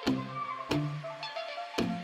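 Background music with a steady electronic beat and pitched bass notes.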